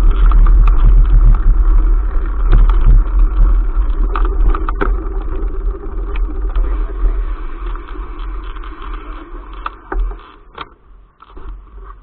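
Mountain bike riding over bumpy grass, heard through a bike-mounted camera: wind noise on the microphone with knocks and rattles from the ride. It dies down over the last few seconds as the bike slows to a stop.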